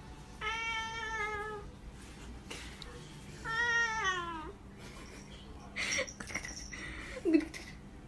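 A domestic cat meows twice in long, drawn-out calls, the second falling in pitch at its end. Near the end there is some rustling and a brief, lower-pitched sound.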